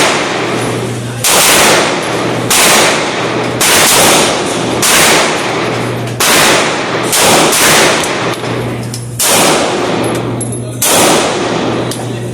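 Gunshots fired one at a time, about nine shots at uneven intervals of roughly one to two seconds, each followed by a long echoing tail.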